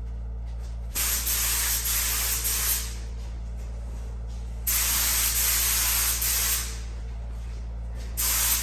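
Concours Pro paint gun with a 1.3 tip, fed at 24 psi, spraying base coat in three bursts of about two seconds as the trigger is pulled and released, a hiss of air and paint with short pauses between passes. A steady low hum runs underneath.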